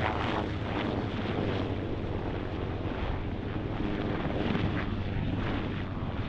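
Two Bell military helicopters, a UH-1 Venom and an AH-1 Cobra, flying low past together: steady turbine and rotor noise with a low hum and the beat of the rotor blades.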